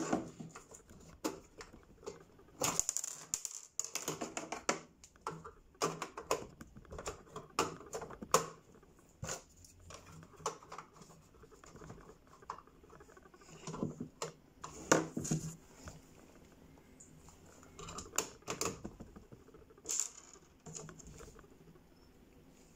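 Irregular clicking, tapping and light knocking of small parts and a screwdriver being handled and fitted on a gun, in scattered clusters with pauses between.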